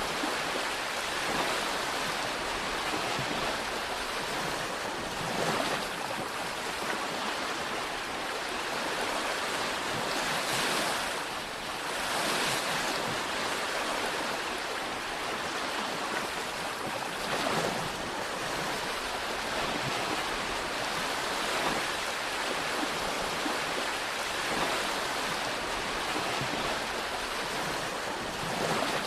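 Sea waves washing onto the shore, a steady rush of surf that swells every few seconds.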